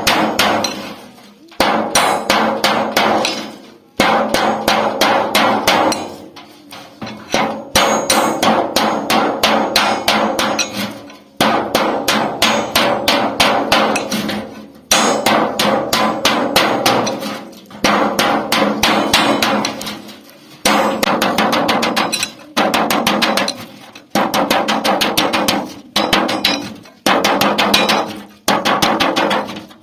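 Hand hammer beating sheet metal from an old refrigerator to shape it into a pot: rapid runs of ringing metallic blows, each run lasting a second or two, with short pauses between runs.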